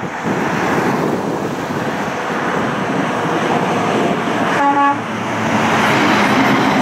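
Road traffic passing: tyre and engine noise from the approaching lit Coca-Cola Christmas tractor-trailer and the cars around it, getting louder as it nears. About two-thirds of the way in a vehicle horn gives one short toot.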